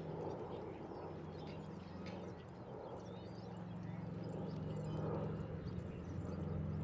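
Outdoor ambience: a steady low hum under a rushing noise, with faint short chirps and ticks above it, growing slightly louder toward the end.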